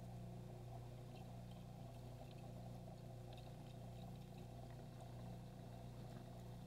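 Faint, steady hum of an aquarium pump running, with a few faint ticks over it.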